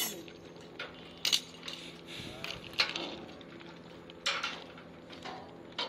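Sharp metallic clinks and knocks, three louder ones spaced about a second and a half apart among smaller clicks, over a steady low hum.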